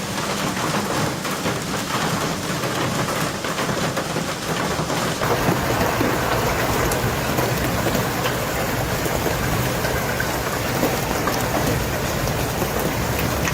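Hailstorm: hailstones pelting down hard, a dense, continuous clatter of many small impacts over the rush of the storm.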